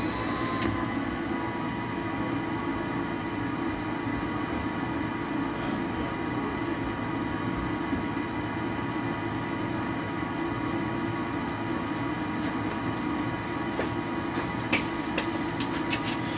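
Gas furnace's draft inducer blower spinning up with a rising whine right at the start, then running steadily with a hum and a whine while the hot surface igniter warms up ahead of ignition. A few light clicks come near the end.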